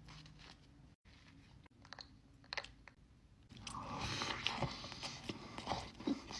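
A person chewing and biting food close to the microphone, with quiet scattered mouth clicks at first and steadier chewing from about three and a half seconds in.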